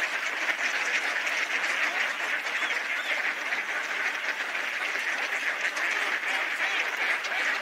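Steady, dense din of a large flock of waterfowl calling together: whooper swans and ducks.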